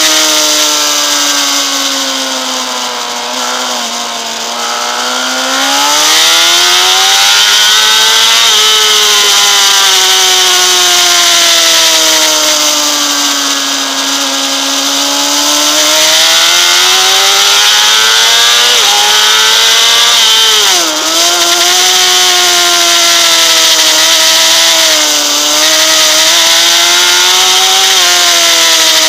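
Honda CBR600RR inline-four engine at high revs under full track riding, its pitch rising and falling in long swells through acceleration and braking, with a sudden brief dip in revs about two-thirds of the way through. Steady wind rush sits over the engine.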